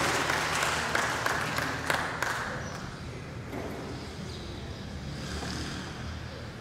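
A crowd applauding, the clapping thinning out and dying away after about two and a half seconds, leaving a faint steady low hum.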